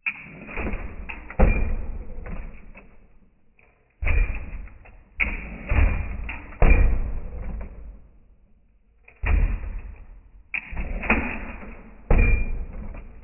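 Repeated heavy bangs and thumps in clusters of two or three, a couple of seconds apart, each dying away: a 1962 lowrider hopping on A-arm hydraulic suspension, its back bumper cracking against the ground.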